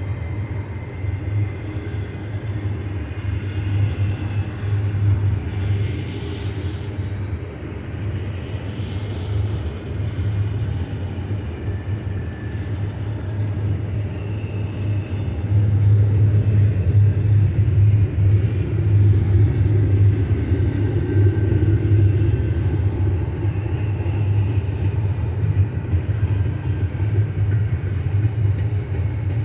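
Loaded double-stack intermodal well cars of a freight train rolling past, a steady low rolling noise of steel wheels on rail, with faint brief high squeaks now and then. It gets louder about halfway through.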